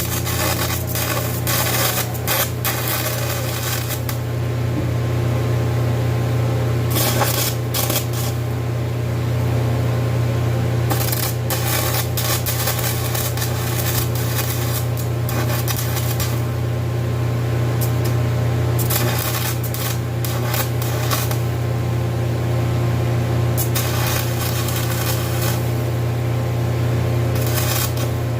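An electric grinder running at a steady hum, with steel file stock pressed against it in repeated passes of harsh grinding noise.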